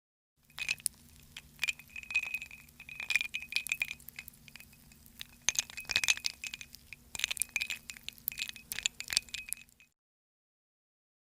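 Glass clinking and rattling: many quick, irregular clinks with a ringing high tone, with a faint low hum beneath. It stops abruptly near the end.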